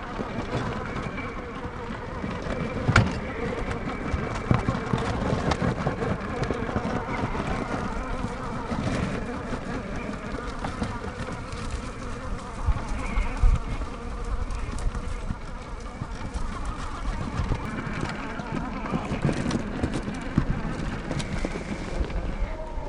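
Traxxas TRX-4 1/10-scale RC crawler's electric motor and geared drivetrain whining as it drives off-road, with scattered knocks and clicks from the tyres and chassis on the ground, the loudest about three seconds in and again after about thirteen seconds.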